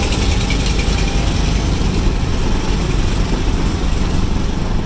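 Auto-rickshaw's engine running steadily as it drives, heard from inside the open passenger compartment as a low rumble.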